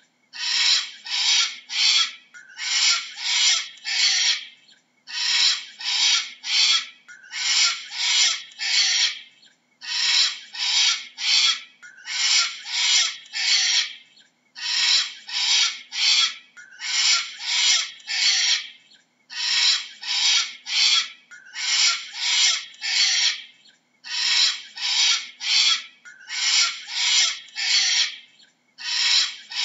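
Cockatoo screeching: harsh calls in runs of three or four, with a new run about every two seconds.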